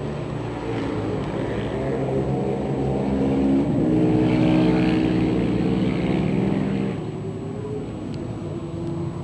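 Racing quad engine running, getting louder to a peak around the middle and dropping back about seven seconds in.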